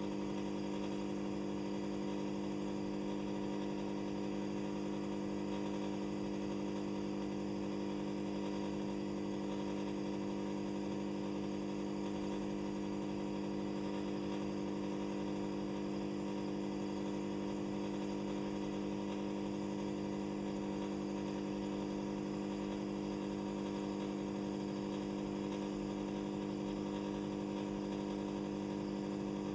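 Steady, unchanging mechanical hum with a low buzz, from running aquarium equipment.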